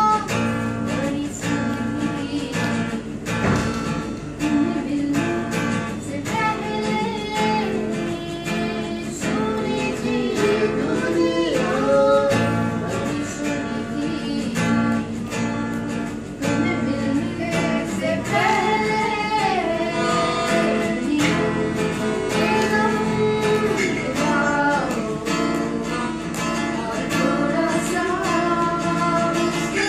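Acoustic guitar strummed as accompaniment while a voice sings a slow melody over it, with long held notes that glide between pitches.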